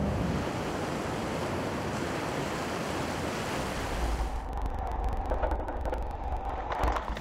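Rushing surf and spray as a small boat drives through breaking waves, with wind buffeting the microphone. About four seconds in, the hiss drops away to a low rumble with scattered crackles of spray.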